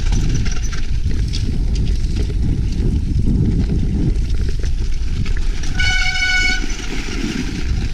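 Strong wind buffeting the microphone of a handlebar-mounted action camera as a bicycle rides over snow. About six seconds in, a short, steady horn-like tone sounds for under a second.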